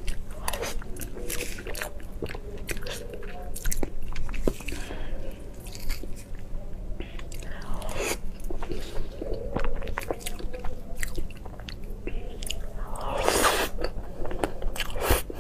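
Close-miked mouth sounds of eating a soft, creamy yellow dessert from a spoon: wet chewing, lip smacks and small clicks throughout, with a louder, longer mouth noise about thirteen seconds in.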